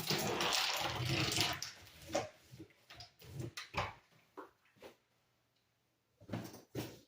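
Hands working the tile-setting mat: a rubbing, scraping noise for about a second and a half, then scattered light knocks and taps, a short pause, and a few more knocks near the end.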